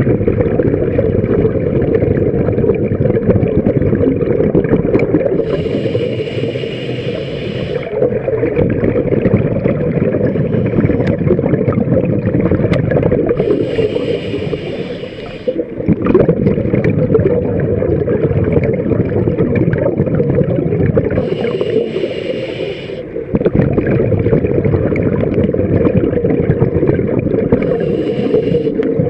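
Scuba diver breathing through a regulator underwater: a hiss with each inhalation, four times about every seven or eight seconds, and between them the low rumble and gurgle of exhaled bubbles.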